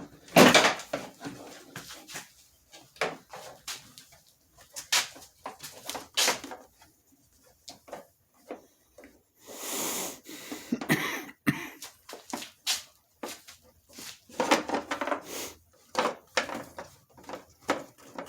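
Irregular clicks and knocks of handling, with a brief hiss about ten seconds in and a sharp click just after it.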